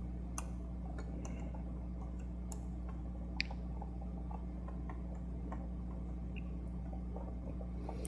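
Scattered faint clicks and ticks of a small Phillips screwdriver and screws on the metal L-shaped bracket in a MacBook's battery bay, with one sharper click about three and a half seconds in, over a steady low hum.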